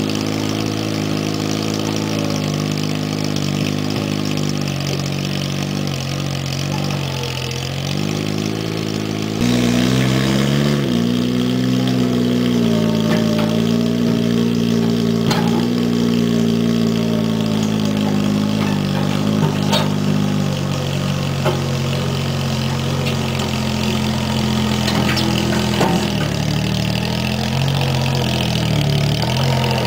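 Case 1816 skid-steer loader, powered by a Geo Metro car engine, running as it climbs a steep dirt grade. The engine note dips a few times and steps up louder about nine and a half seconds in, with a few short clicks over the top.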